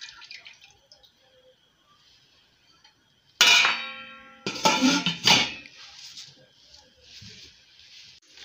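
Stainless steel cookware being handled at the stove: one sharp metallic clang that rings for about a second, followed by a few more quick knocks of metal on metal, then a faint steady hiss.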